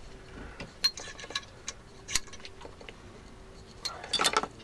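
Scattered sharp metallic clicks and clinks of a hand tool working on a Land Rover Discovery 2's brake caliper as the piston is squeezed back in, pushing the old brake fluid out. The clicks come irregularly, with a quick cluster of them near the end.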